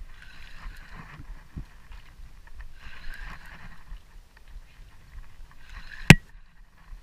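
Handling noise on a body-worn camera: a sleeve rubbing across it in three short bursts of rustling, then one sharp, loud knock about six seconds in as the arm bumps it, after which the sound goes briefly muffled.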